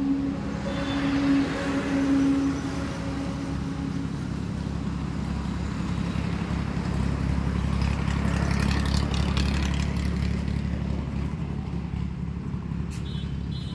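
An engine running steadily, a low hum that swells a little around the middle.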